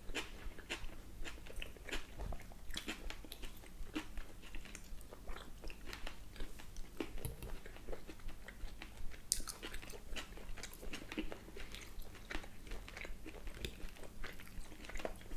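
Close-miked chewing and mouth sounds of people eating grilled beef steak, with scattered small clicks of forks and knives against plates.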